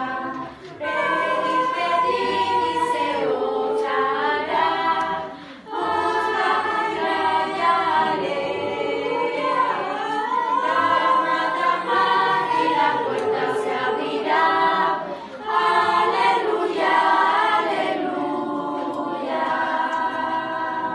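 School choir singing together in long phrases, with brief breaks between phrases about six and fifteen seconds in.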